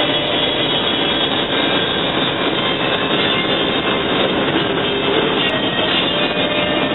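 Steady tyre and wind noise inside a car cabin moving at highway speed.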